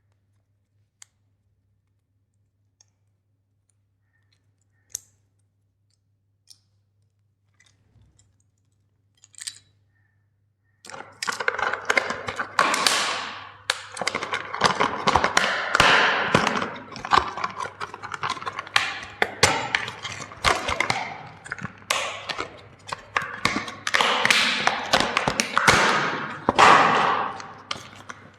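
Plastic toys being smashed with a hammer: a few light clicks, then from about 11 seconds in a long run of dense crunching and cracking as the plastic breaks apart under repeated blows.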